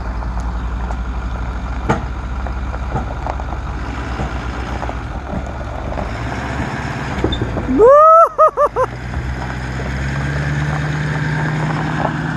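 Pickup truck engine running steadily as it tows a travel trailer away. About eight seconds in comes a loud squeal that rises in pitch and then wavers in several quick pulses, after which the engine note grows as the rig pulls off.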